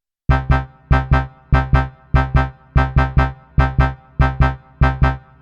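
Background music: short chords struck in pairs over a low bass note, repeating in a steady, even rhythm.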